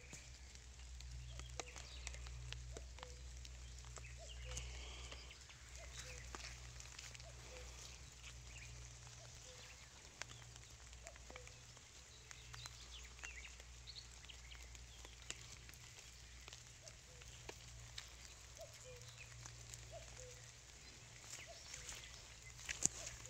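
Faint woodland ambience: scattered bird chirps and small clicks and rustles as the camera is carried through vegetation, over a steady low rumble.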